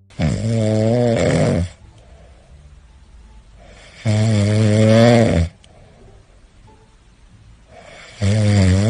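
Cat snoring in a steady rhythm: two loud snores of about a second and a half each, about four seconds apart, and a third starting near the end.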